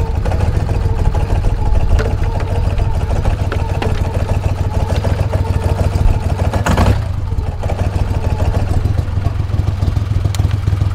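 Small boat's outboard motor running steadily at low speed, with a short burst of noise about seven seconds in.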